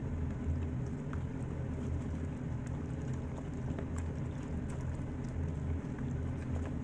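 A steady low hum, with faint wet squishing and small ticks from hands rubbing marinade into raw whole chickens in a plastic bowl.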